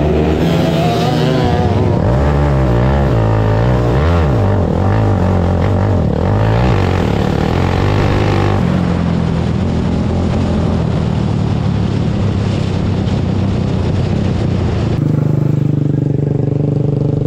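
Outlaw dirt kart engine running hard, its pitch rising and falling again and again as it revs up and backs off, then holding steadier. About fifteen seconds in, the sound changes abruptly to a duller, steady running note.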